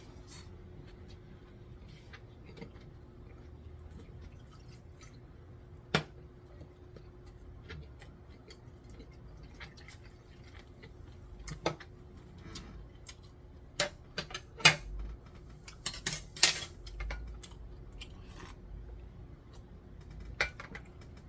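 Eating utensils clicking and clinking against dishes during a meal: scattered sharp taps, busiest in the second half, over a faint steady hum.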